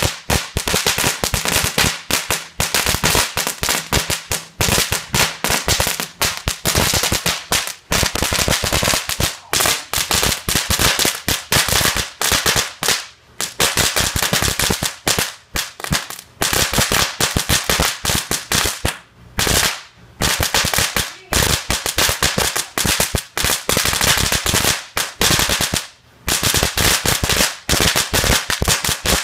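World Class Cracker Barrel crackling fountain firework burning: a dense, rapid run of sharp crackling pops with a few brief lulls.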